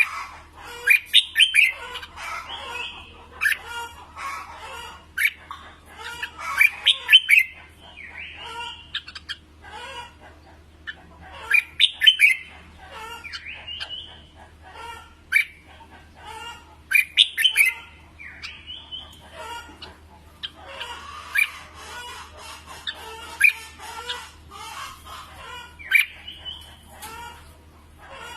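Red-whiskered bulbuls singing: loud groups of sharp, sliding whistled notes about every five seconds, with quieter chirps in between.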